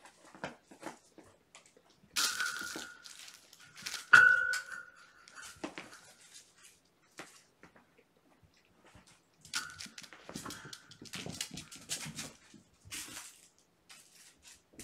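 Kittens playing with their toys: scattered rustling, crinkling and light knocks of paws and toys, with louder clatters about two and four seconds in.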